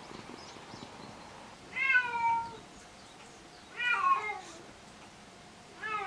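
A domestic cat meowing three times, about two seconds apart. Each meow is short and drops in pitch at the end, and the last begins just before the end.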